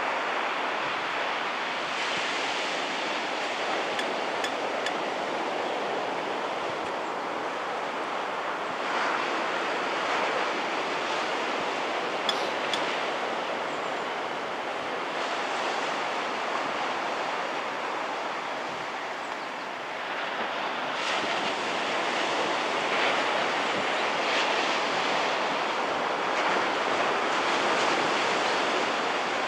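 Small thigh-to-waist-high beach-break waves breaking close to shore, the surf washing in continuously and growing louder about nine seconds in and again from about twenty seconds as waves break.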